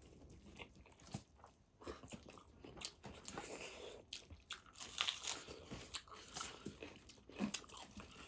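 Close-up mouth sounds of a person biting and chewing pork feet: irregular sharp clicks and bites, busiest about five seconds in.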